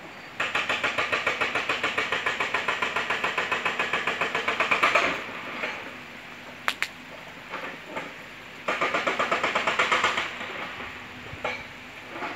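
An animal call in rapid, even pulses, about six a second, swelling to its loudest and then cutting off about five seconds in, and starting again for a second and a half later on. A single sharp click falls in the pause between.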